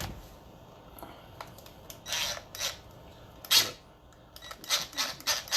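Clicks and clatter of a connector and small tools being handled on a workbench: a few separate sharp strokes, then a quick run of them near the end.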